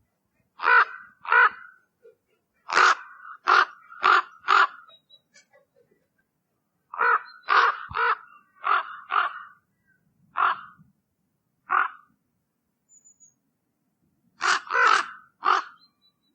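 Common raven calling: short calls in groups of two to five, with silent gaps of a second or more between the groups.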